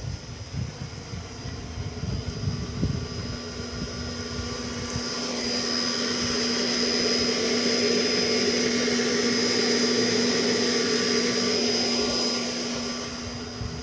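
Electric motor of a 3 hp three-phase centrifugal water pump, fed by a solar pump inverter, running steadily: a level hum with a high whine above it, growing louder through the middle seconds and easing off near the end. Wind buffets the microphone in the first few seconds.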